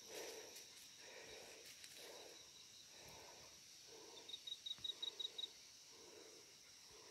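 Faint forest ambience: a steady high insect drone, with soft footsteps in leaf litter about once a second. About four seconds in, a quick run of around eight high chirps stands out.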